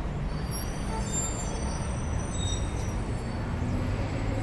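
Low, steady rumble of road traffic or a large vehicle's engine, with several short high-pitched squeals in the first few seconds.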